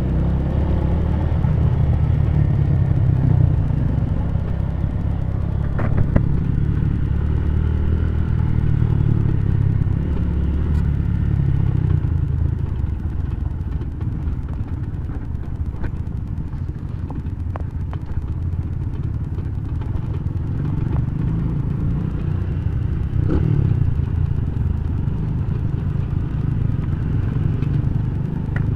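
Honda Tiger motorcycle's single-cylinder engine running while riding a rough dirt trail, with a steady low rumble and a few sharp knocks and rattles from the bumps.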